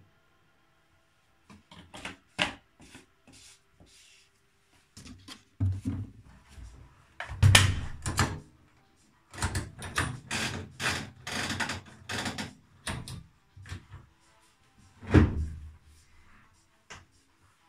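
Laundry being pushed into a front-loading washing machine, then the machine's door shut and its control buttons pressed: a string of clicks and knocks, with heavy thumps about seven and a half and fifteen seconds in.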